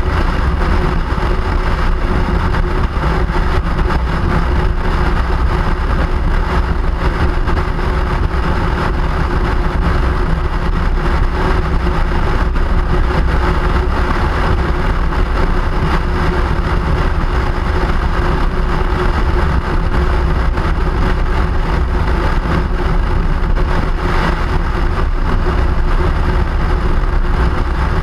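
Steady, loud travel noise of a commuting ride, a constant low rumble with a faint even hum that does not change.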